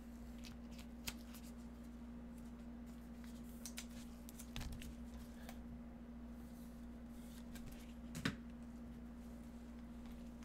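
Faint clicks and rustles of trading cards being handled with nitrile-gloved hands and slid into a clear plastic holder, with a couple of sharper taps about a second in and about eight seconds in. A steady low hum runs underneath.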